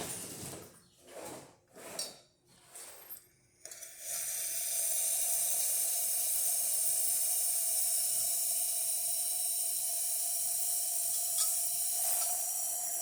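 La Pavoni lever espresso machine's steam wand opened: a few short spurts, then about four seconds in a steady, loud hiss of steam with a faint whistle-like tone in it.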